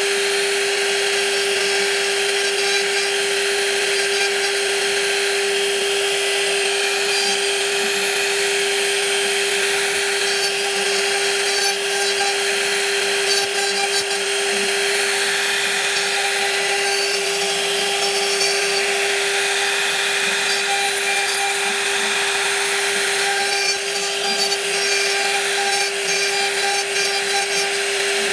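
A woodworking power tool cutting wood, with one steady high whine over a rough cutting noise that holds at much the same level throughout.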